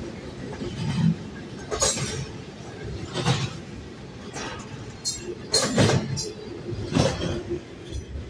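Double-stack intermodal freight cars rolling past, steel wheels on rail with a low rumble and several sharp metallic clanks, the loudest about six seconds in, as the end of the train goes by.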